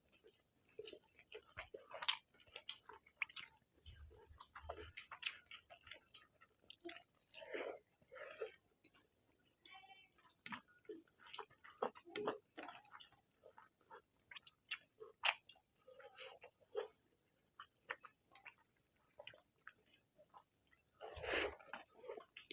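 People eating rice and egg curry up close: soft chewing, lip smacks and small clicks, scattered and irregular, with a louder burst of eating noise near the end.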